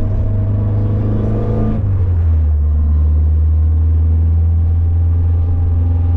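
Simca Rallye 2's four-cylinder engine running as the car drives, heard from inside the car. Its note drops about two seconds in, then holds steady.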